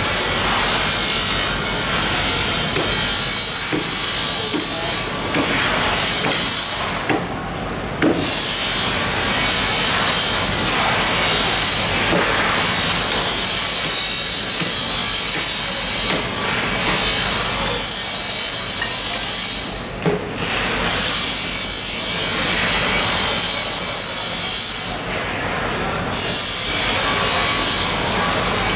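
A long fish knife sawing back and forth through a whole giant bluefin tuna's head, a steady rasping scrape of blade on fish, broken by brief pauses a few times.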